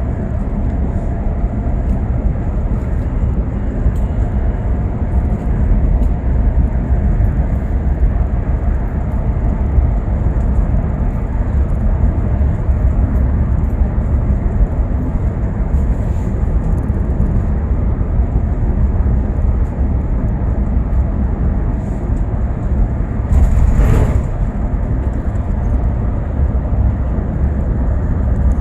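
Steady low rumble of a moving bus, engine and road noise heard from inside the cabin. One brief louder rush of noise comes a little before the end.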